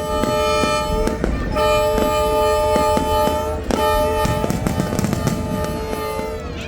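Diesel locomotive air horn sounding a steady multi-tone chord in long blasts: one ends about a second in, the next lasts about two seconds, and a third starts just before four seconds and carries on. Sharp clicks and knocks sound throughout.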